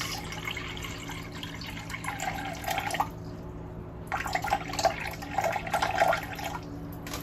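Water poured in a thin stream from a pitcher into a glass mixing bowl already holding water, trickling and splashing. The pour thins out about three seconds in, picks up again a second later, and stops shortly before the end.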